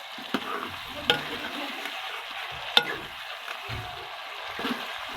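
Food sizzling as it fries in a pan while being stirred, with a few sharp clacks of the stirring utensil against the pan, the loudest a little under three seconds in.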